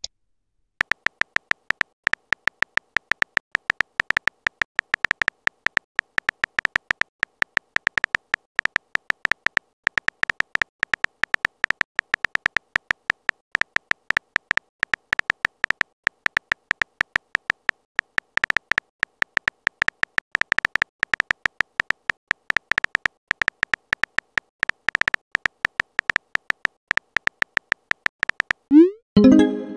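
Keystroke sound effect of a texting-story app, short high ticks coming irregularly several times a second as a message is typed out letter by letter. Near the end, a short rising pop as the message is sent.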